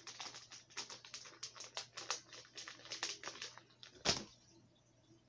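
Clear plastic zip bag of soft plastic fishing baits crinkling and rustling as it is handled, then a single thump about four seconds in as it is put down on the table.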